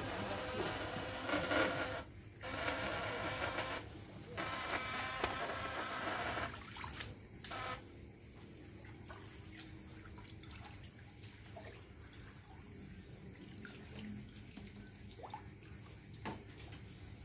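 Water sloshing and splashing for about the first seven seconds, cutting out briefly twice. Then it gives way to a steady high insect trill of crickets, with a few faint clicks.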